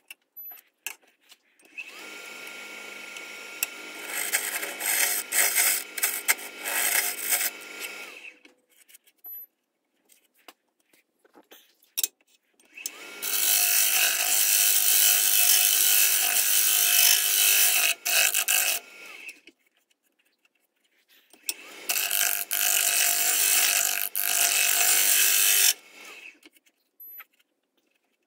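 Wood lathe run three times for a few seconds each, with a turning tool cutting the inside of a spinning eucalyptus burl bowl: a steady motor hum that turns into a harsh scraping hiss as the tool bites. The lathe stops between runs.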